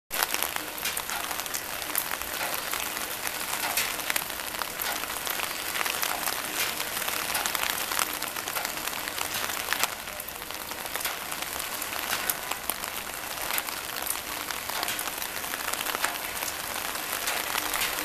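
Rainwater pouring in a steady stream from a sheet-metal gutter spout and splashing onto a mesh screen on top of a 300-gallon rainwater tank. It is a steady splashing hiss with many small crackling drips.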